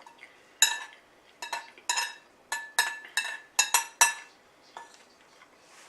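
Metal cutlery clinking against a dish: about a dozen short, ringing clinks in quick, uneven succession, then one more a little later.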